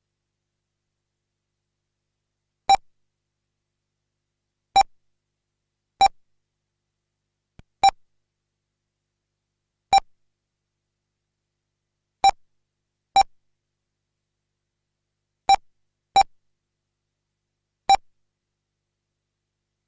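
Race timing system giving ten short, identical electronic beeps at uneven intervals, each marking a car crossing the lap-counting loop. Nothing is heard between the beeps.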